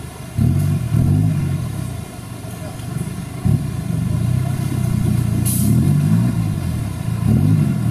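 Off-road competition 4x4's engine revving up and down in repeated bursts as the truck crawls over creek-bed boulders. There is a sharp knock about three and a half seconds in and a brief hiss about two seconds later.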